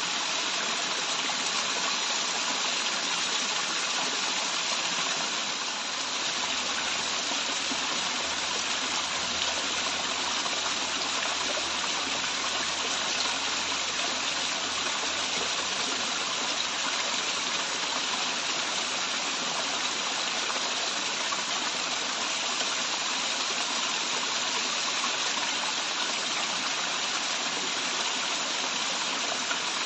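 Waterfall with running water: a steady, even rush of falling and flowing water.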